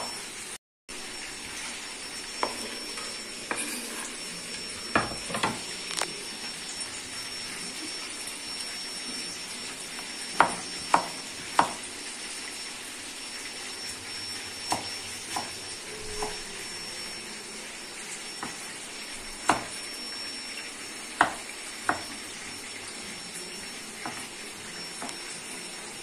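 Food deep-frying in hot oil, a steady sizzle, with a metal utensil clinking against the pan every second or so.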